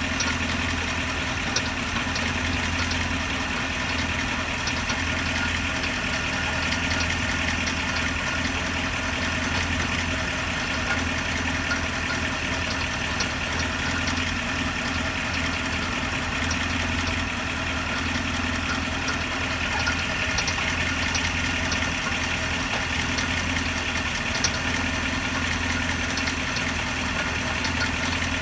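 Chevrolet C6 Corvette with a six-speed automatic idling steadily, with a few faint scattered ticks. The owner is chasing a mystery noise that he traces to the rear main and torque tube area.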